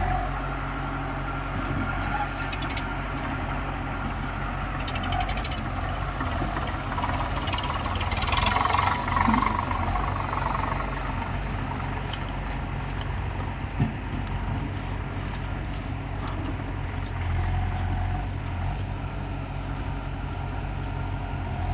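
Diesel engine of heavy machinery running steadily, with a louder stretch of rushing noise about eight to ten seconds in and a single sharp click later.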